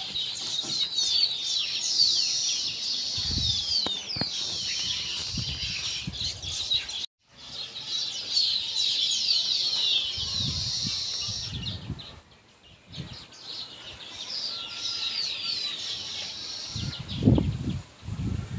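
A chorus of many small birds chirping, a dense tangle of quick falling notes. It cuts out completely for a moment about seven seconds in and fades again around twelve seconds, with a few low thumps scattered through.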